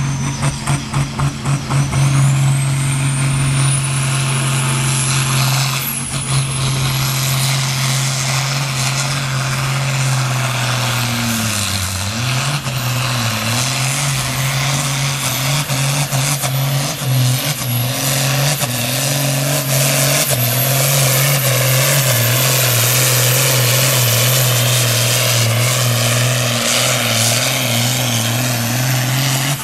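Diesel pulling tractor running at full throttle as it drags a weight-transfer sled down the pulling track. A high whistle rises over the first few seconds. The engine note sags briefly about twelve seconds in, then picks up again.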